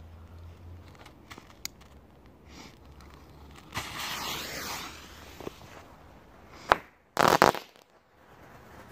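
A Category 1 consumer firework going off: about a second of hissing, a sharp crack a little before seven seconds in, then a loud half-second burst of several bangs with crackling.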